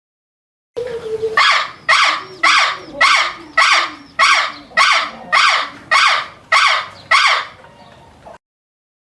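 A bird giving a series of about eleven loud, harsh calls, about two a second, which starts and stops abruptly.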